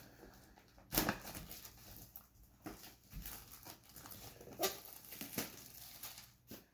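Cardboard trading-card box being handled and opened: scattered taps and knocks with faint rustling of packaging.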